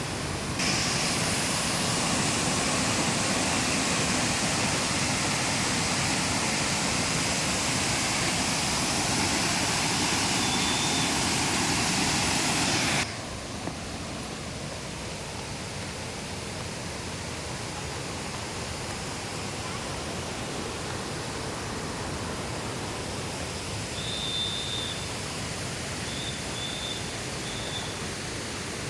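Steady rush of water from a waterfall. About 13 seconds in it drops suddenly to a softer, duller rush, and a few faint high chirps sound near the end.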